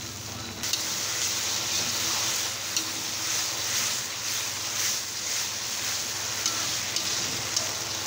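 Thick potato masala sizzling in a metal kadhai while a fork stirs and scrapes through it, with a few sharp clicks of the fork on the pan. The sizzle grows louder about half a second in.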